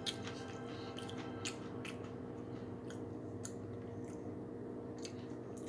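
Close-up chewing of crunchy tortilla chips (Doritos), irregular crisp crunches over a steady low hum.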